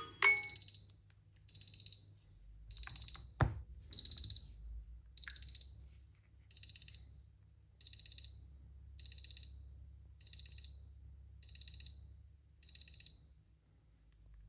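Smartphone alarm or timer beeping: clusters of quick, high-pitched electronic beeps repeating about once every second and a bit, stopping near the end. A single sharp click sounds about three and a half seconds in.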